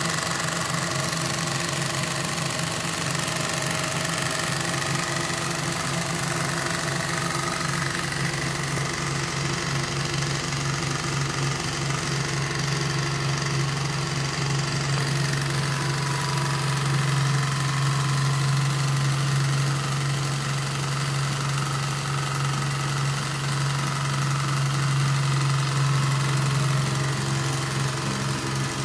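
Vertical Bing toy steam engines running steadily, driving belt-driven model workshop tools that load them down. The sound is a fast, even mechanical beat over a low hum, a little louder in the second half.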